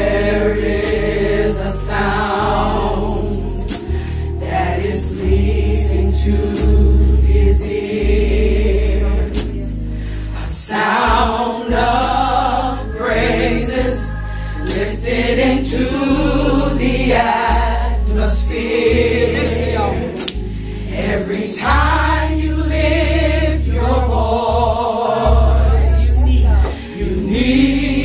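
A gospel choir singing with a band: loud bass notes and a steady drum beat under the voices.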